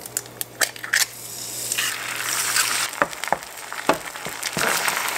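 Eggs frying in coconut oil in a nonstick skillet. The sizzle grows louder about two seconds in, with scattered sharp pops and clicks.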